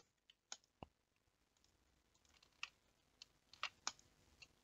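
Faint computer keyboard key presses and mouse clicks, a handful of short separate clicks spread through otherwise near silence.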